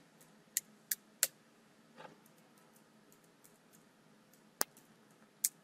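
Computer keyboard keystrokes: a handful of separate, unevenly spaced key clicks, with a gap of over two seconds between the first group and the last two.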